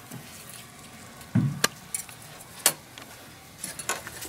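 Small metal parts being handled: a few scattered light clicks and clinks, with a dull knock about a second and a half in and the sharpest click near the middle.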